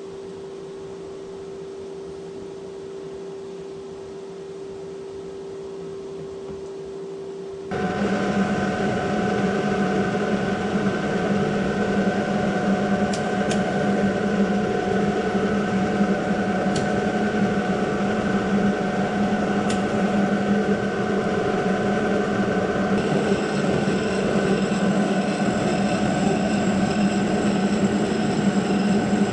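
Kearney & Trecker horizontal milling machine running with a steady gear whine. A quieter steady hum jumps suddenly louder about eight seconds in, a few sharp ticks follow, and a higher whine joins at about 23 seconds.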